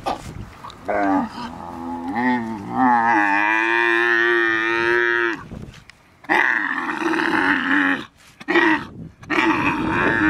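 Dromedary camel in labour calling out in a series of loud, drawn-out groaning calls while its calf is pulled from it; the longest call holds a steady pitch for about two and a half seconds.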